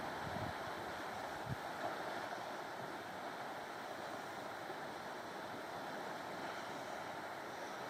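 Steady, soft rushing noise of the sea along a rocky shoreline, with a couple of faint wind bumps on the microphone in the first two seconds.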